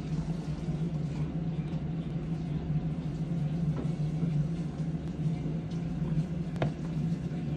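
Steady low hum over a constant background din, with faint ticks and one sharp click about six and a half seconds in.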